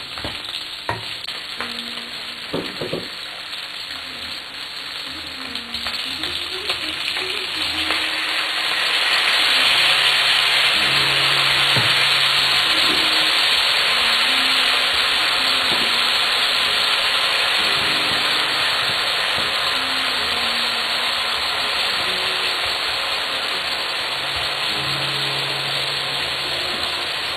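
Onions, sausage and tomatoes sizzling in hot olive oil in a frying pan, with a few clicks of pieces and utensils early on. The sizzle swells about eight seconds in and stays loud.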